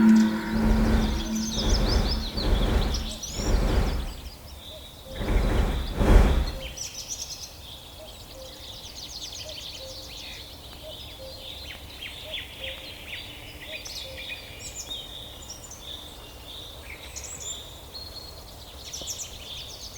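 Songbirds chirping and singing, many short, quick calls over a faint steady background. In the first six seconds it is overlaid by a few low rumbling surges.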